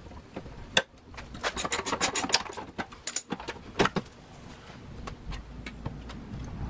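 Quick clicks and light rattles of loose car front-end parts being handled: a sharp click about a second in, a rapid run of about ten around two seconds, a few more near three and four seconds, then only a low steady background.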